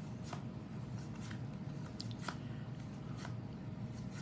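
Pokémon trading cards being flipped through by hand one at a time, a series of faint, irregular clicks and rustles as each card slides off the stack.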